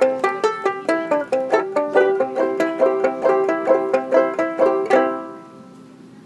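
Banjo ukulele played clawhammer style: a brisk, even run of plucked notes that ends on a last struck note about five seconds in and rings away.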